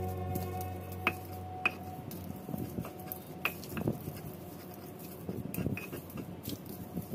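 Stone pestle crushing and grinding fried peanuts into a paste of pounded shallots, garlic and candlenut in a stone mortar. Scattered sharp clicks and knocks of stone on nuts and stone ride over a gritty scraping, and they come faster near the end.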